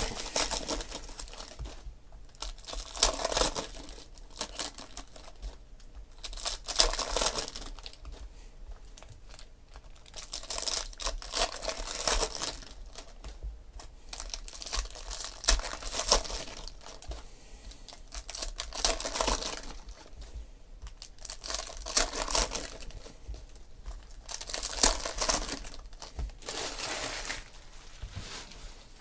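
Foil wrappers of Panini Prizm football card packs being torn open and crinkled, with cards handled and stacked between, in bursts every few seconds.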